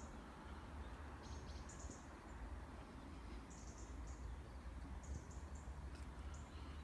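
Small birds chirping faintly: several short, high chirps a second or so apart, heard over a low steady rumble.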